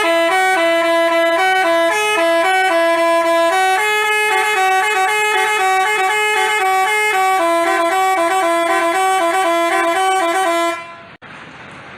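Basuri telolet bus horn playing a quick tune of changing notes in two-part harmony, then cutting off shortly before the end, leaving only background noise.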